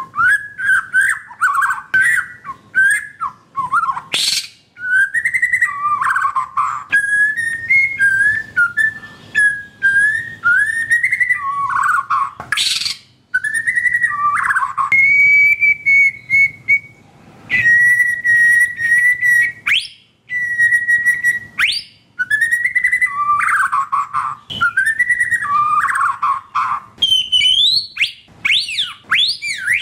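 White-rumped shama (murai batu) singing a loud, varied run of whistled phrases, with sliding notes, a few held steady notes past the middle and sharp clicks mixed in.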